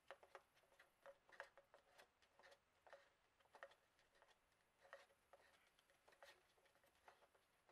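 Near silence with faint, irregular clicks and ticks: the Henry AR-7's aluminum receiver being turned against its polymer buttstock as the captive bolt is screwed in.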